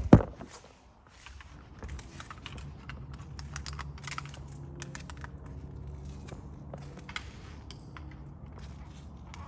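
A sharp thump right at the start, then scattered soft clicks and small knocks of handling over a steady low hum.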